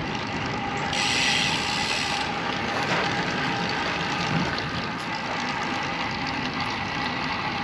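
Road bike's rear freehub ticking as the rider coasts, over steady wind and tyre noise, with a louder rush of noise for about a second near the start.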